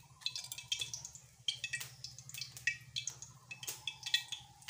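Hands working pumpkin leaves and wet lentil paste: irregular small crackles and clicks as the paste is spread over the leaf and the leaf is folded, over a faint low hum.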